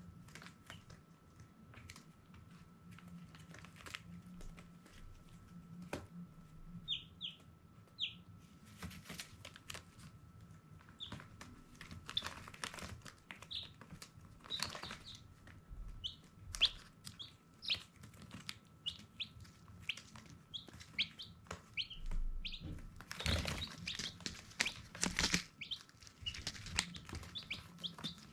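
Baby chicks peeping in short, high chirps, scattered and overlapping, with brief rustling noises in between.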